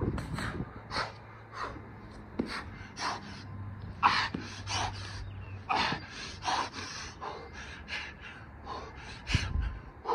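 A man panting hard, with quick, heavy breaths about twice a second, out of breath from doing burpees. There is a dull thump near the end.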